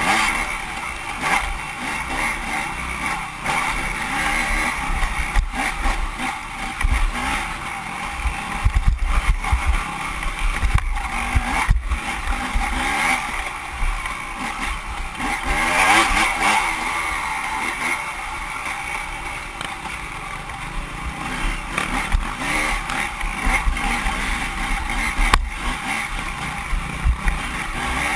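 Off-road motorcycle engine running hard through a race lap, rising and falling with the throttle. Gusty low rumble from wind buffeting and sharp knocks from the bike over rough ground come through at intervals.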